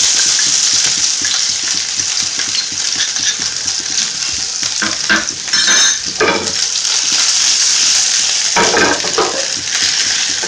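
Finely chopped onion sizzling in hot oil in a non-stick frying pan. A spatula scrapes and stirs in short strokes about halfway through and again near the end.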